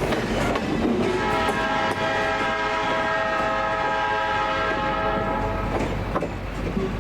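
Freight locomotive horn sounding one long blast of about five seconds, starting about a second in. The rumble and clatter of the passing train go on under it.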